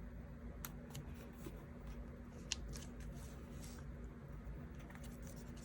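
Faint handling of sticker sheets and paper on a desk: a few light clicks and rustles over a low steady hum.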